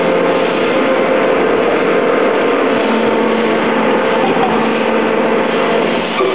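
Plastic injection moulding machine running in production: a loud, steady machine hum with a couple of constant tones under it.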